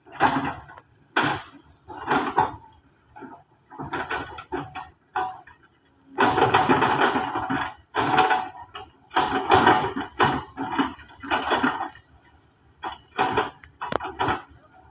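Excavator bucket scraping and clattering through loose broken rock and soil in irregular bursts, each lasting from half a second to two seconds, with near-silent gaps between.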